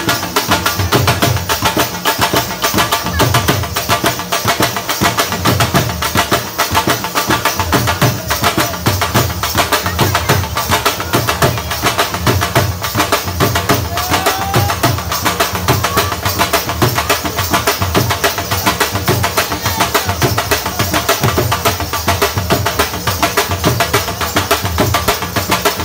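Dhol drums playing a fast Qalandri dhamal rhythm: deep bass strokes pulsing under dense, rapid sharp strikes.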